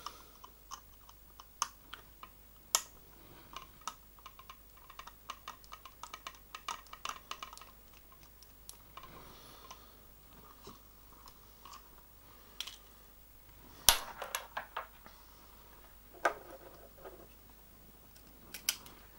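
Small sharp clicks and taps of a hex driver and small metal parts on an RC car chassis as screws are worked and the upper suspension arm is moved aside, with a dense run of clicks about four to seven seconds in and a sharper knock about fourteen seconds in.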